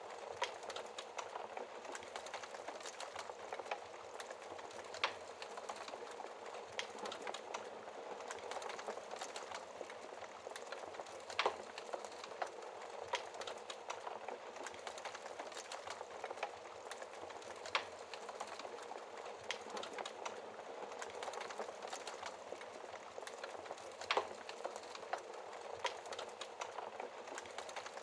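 Wood fire burning steadily with a constant crackling hiss, sharp crackles scattered throughout and a few louder pops of burning logs.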